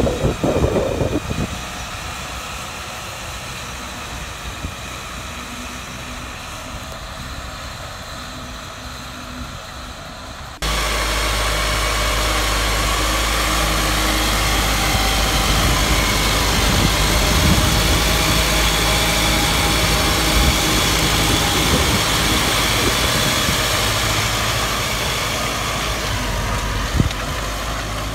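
Zetor tractor diesel engines working steadily under load, pulling a disc and seed harrow through soil. At first a Zetor 9540 Turbo is heard from a distance. About ten seconds in, the sound cuts abruptly to a much louder, closer tractor engine with a deep drone.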